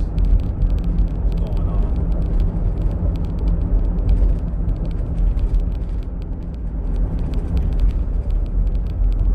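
Steady low rumble of engine and road noise heard from inside a moving truck's cab.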